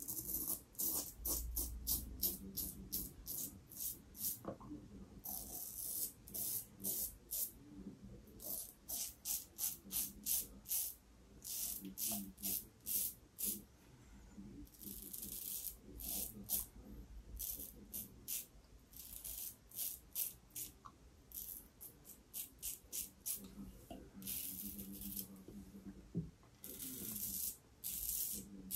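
Double-edged safety razor, a Yaqi SRC cap on a Fatip closed-comb base with an Astra Stainless blade, cutting lathered stubble in short strokes, several in quick succession, then a brief pause before the next run.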